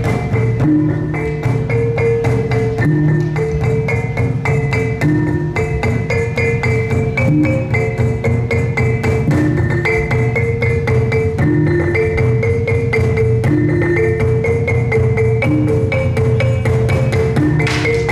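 Loud live percussion music: fast drumming under a short pattern of pitched, struck notes that repeats over and over, the kind of ensemble that accompanies a pencak silat display.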